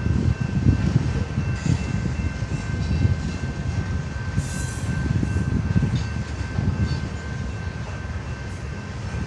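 CN freight train rolling past: a steady, loud low rumble of the railcars on the track, with a faint steady high wheel squeal over it.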